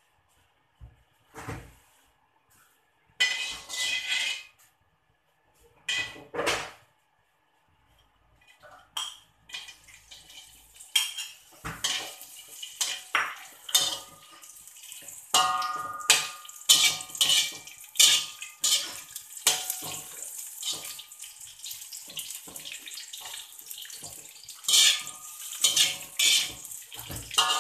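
Pieces of salted stingray going into hot oil in a metal wok, sizzling in short bursts at first, then frying steadily from about ten seconds in while a metal spatula scrapes and clatters against the wok.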